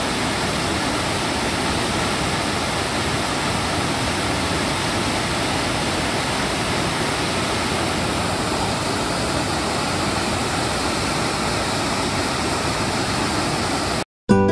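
Waterfall cascading over rock steps, a steady rush of white water that cuts off suddenly near the end.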